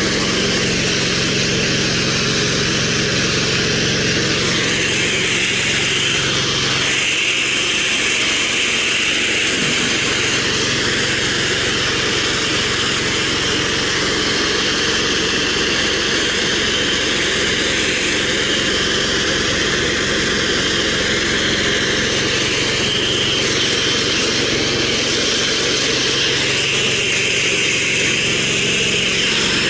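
Gas-engine pressure washer running steadily under load, with the spray gun hissing as it jets soapy water through the downstream injector.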